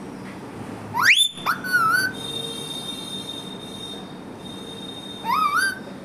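Indian ringneck parrot whistling: a fast rising whistle about a second in, a short wavering note, then a long steady high note held for a few seconds, and more wavering whistles near the end.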